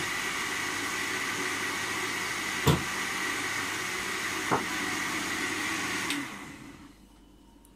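Countertop jug blender running steadily with a whine, blending liquid, with two brief knocks partway through. It is switched off about six seconds in and the motor winds down over about a second.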